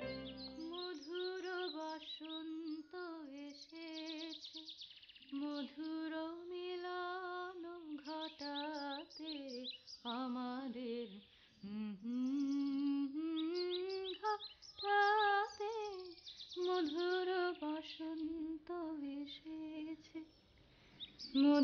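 A woman humming a slow, wordless melody unaccompanied, in long held notes with a wavering pitch and short pauses for breath.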